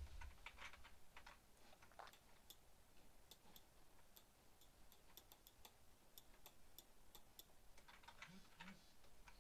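Faint, irregular clicking of computer controls, coming in quick clusters through the middle, over near-silent room tone.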